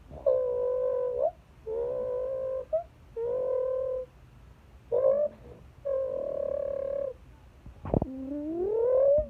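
A person imitating a 6.0 Power Stroke diesel engine with his mouth: five held, droning vocal notes of about a second each with short breaks, then a click and a steadily rising note near the end, like the engine revving up.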